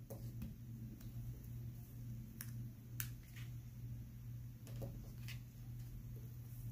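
Faint, scattered clicks and taps of hands handling small paper flower die-cuts and pressing them onto a card stock card, over a steady low hum.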